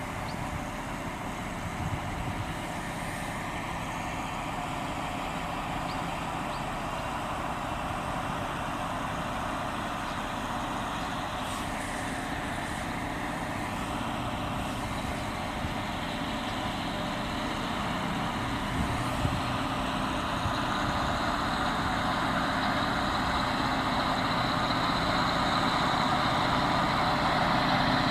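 Diesel locomotive engine running steadily and slowly growing louder, with a high whine building near the end.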